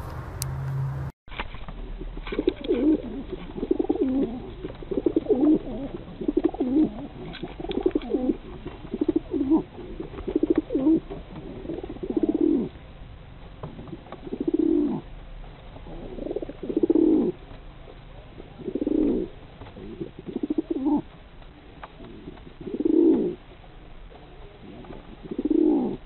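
English fantail pigeons cooing over and over, the display coo of pigeons showing off. The low coos come thick and overlapping at first, then settle to one every two seconds or so.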